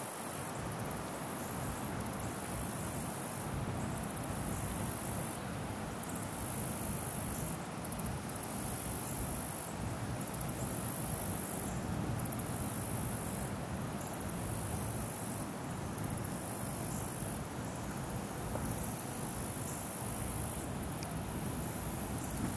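Insects, crickets or katydids, trilling high-pitched in repeated pulses about a second long, over a steady low background hiss.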